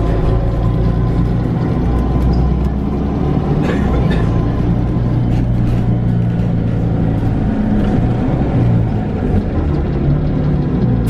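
Mercedes-Benz Citaro G articulated city bus with a compressed-natural-gas engine and ZF automatic gearbox, running steadily under way. It is heard from inside the passenger cabin as a steady low engine drone mixed with road and body noise.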